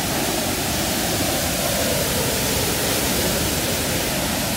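Waterfall: a steady, dense rush of falling water that holds level throughout.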